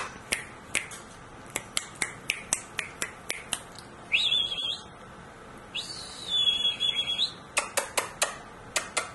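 Sharp clicks like finger snapping, about three a second, broken near the middle by two high, steady squeaky tones, the second one longer. These are noises made to get a posing puppy to look toward the camera.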